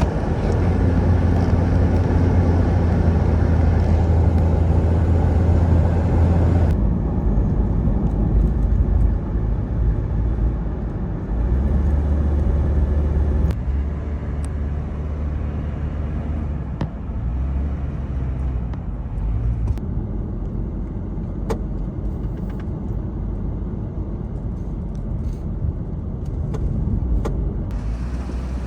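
Steady low rumble, changing abruptly about seven seconds in and again near the end, with a few faint clicks.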